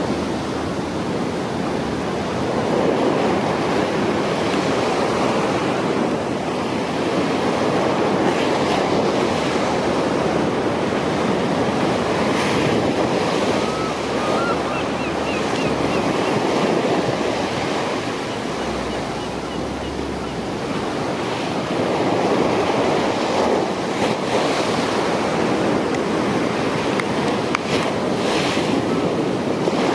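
Steady rush of wind and water, with wind buffeting the microphone; no regular beat stands out.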